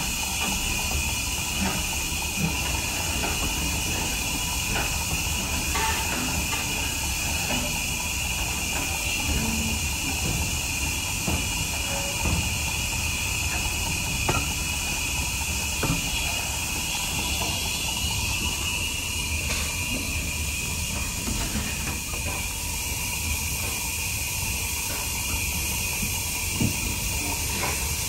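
USATC S160 2-8-0 steam locomotive hauling its train up a steep gradient: a steady steam hiss over a low rumble, with occasional sharp clicks.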